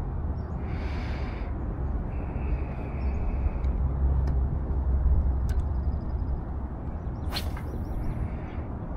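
Small boat's motor running steadily with a low hum, moving the boat back out onto the lake.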